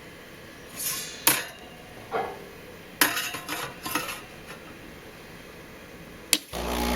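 Hard clinks and knocks of kitchenware being handled, in a few short clusters. Near the end there is a click, and then the Breville Oracle Touch espresso machine's motor starts with a steady hum.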